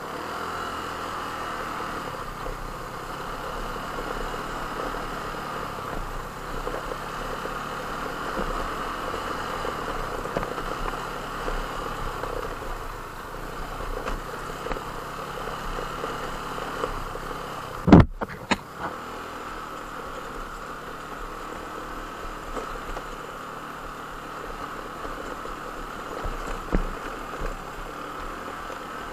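An engine running steadily, with one sharp knock about eighteen seconds in.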